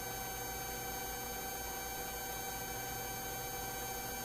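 Steady electronic hum and hiss of an open radio/intercom audio line, with several constant pitched tones running through it and no other events.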